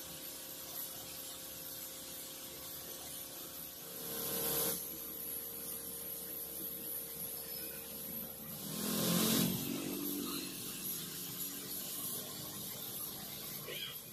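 Gravity-feed air spray gun hissing in two short bursts as paint is sprayed onto scooter body panels, over a steady hum.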